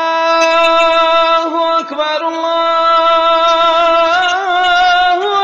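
A single voice singing long, drawn-out held notes as a vocal chant. The pitch slides briefly about two seconds in and wavers upward near the end.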